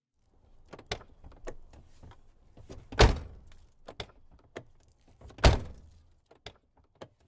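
A run of irregular clicks and knocks over a faint low hum, with two heavy thuds about three and five and a half seconds in.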